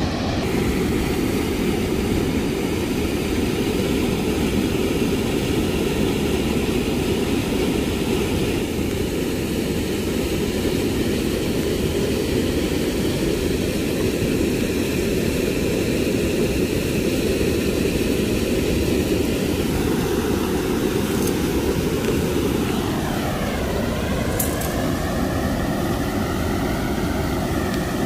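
An engine running steadily with a heavy rumble. Near the end its pitch dips and climbs back up, as if the engine slows and picks up speed again.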